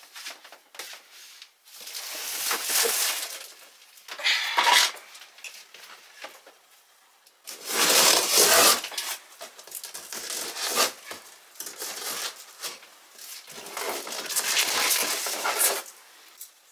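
Cardboard shipping box being opened: packing tape cut and torn and the cardboard flaps and packing rustling and crinkling, in several separate bursts.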